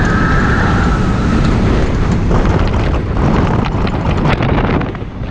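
Cheetah Hunt steel roller coaster train running fast along its track, heard from the front seat: wind buffeting the microphone over a low rumble and rattle from the wheels. A high squeal fades out in the first second and a half.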